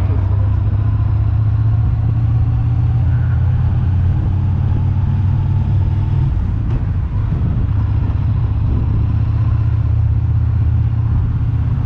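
Steady low engine and road drone of a moving car, heard from inside the cabin, briefly dipping about six seconds in.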